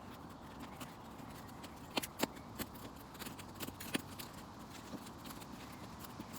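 Small twig fire in a pit crackling and popping: scattered sharp cracks over a steady low hiss, the loudest about two seconds in.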